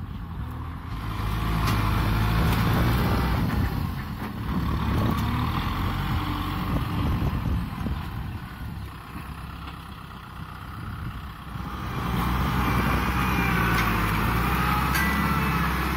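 Kubota M6040SU tractor's diesel engine working under load as it pushes brush and soil with its front blade, its level swelling and easing twice. A higher wavering squeal rides over it in the last few seconds.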